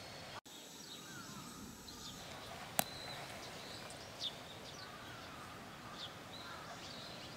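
Small birds chirping over steady open-air background noise. A single sharp click comes about three seconds in and a fainter tick a second later. The sound drops out for an instant near the start.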